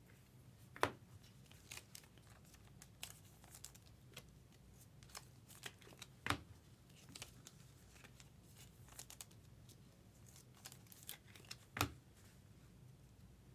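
Faint crinkling and tearing of trading-card pack wrappers and the light rustle of cards being handled, with three sharper clicks: about a second in, midway and near the end.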